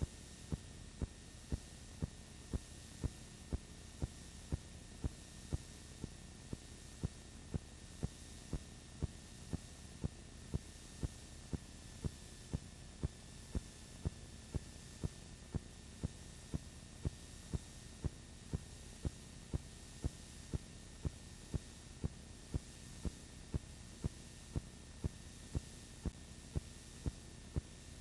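Regular ticking, about three sharp clicks every two seconds, over a steady low hum and hiss.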